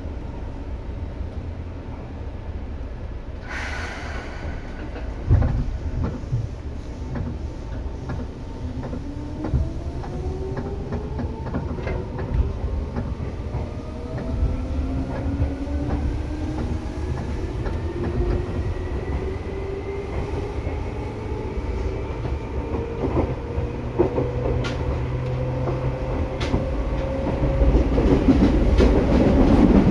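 Seibu 2000 series electric train pulling away and accelerating, heard from inside the car: after a clunk about five seconds in, the traction motors' whine rises steadily in pitch over the rumble of the wheels. Wheel clatter on rail joints grows louder near the end as speed builds.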